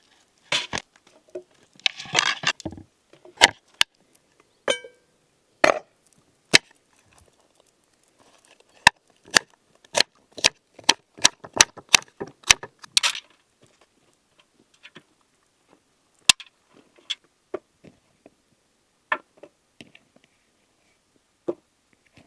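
A knife chopping on a cutting board: sharp single knocks, irregular at first, then a quicker run of about two a second in the middle, thinning out towards the end.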